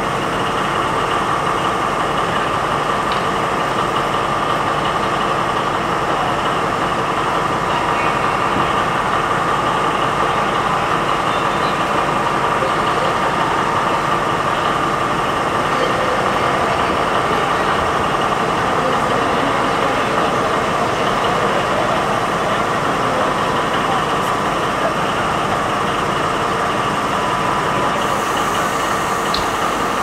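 Class 218 diesel locomotive's MTU 4000 engine idling steadily while the locomotive stands still, with voices in the background.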